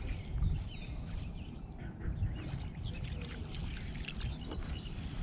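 Low, uneven rumble of water and wind around a kayak on a lake, with small birds chirping faintly in the background.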